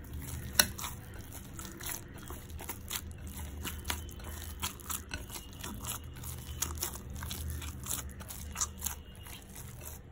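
Hands kneading soft, oiled maida dough in a glass bowl: a run of irregular, wet, sticky clicks and squelches as the dough is pressed and folded, over a faint steady low hum.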